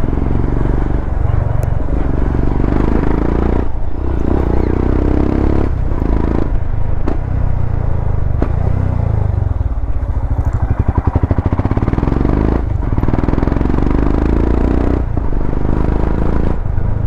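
Royal Enfield Himalayan's single-cylinder engine running through a slip-on aftermarket exhaust under way. The revs rise and fall, with several brief throttle-off breaks. About ten seconds in, the engine runs at low revs with slow, even pulses.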